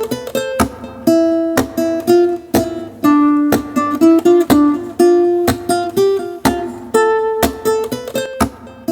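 Intro music: an acoustic guitar playing a quick melody of plucked notes with some strummed chords.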